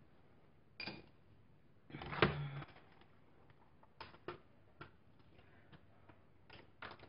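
Scattered light clicks and knocks of makeup palettes and brushes being handled and set down on a table, the loudest cluster about two seconds in.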